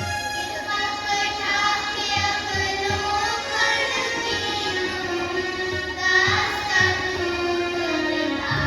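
Children singing a melodic song together over musical accompaniment, the sung notes held and gliding between pitches.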